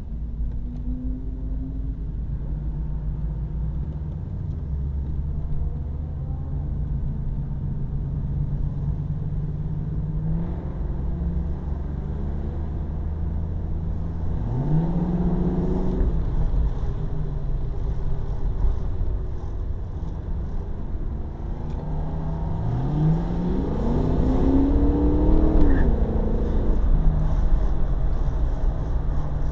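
Car V8 engine idling steadily, then revved twice: a short blip about halfway through and a longer climb near the end, each dropping back to idle.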